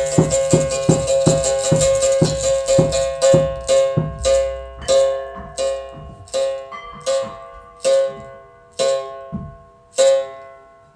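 Berimbau string struck in a steady repeated note that slows down, the strikes spreading out to single hits about a second apart, each ringing and fading.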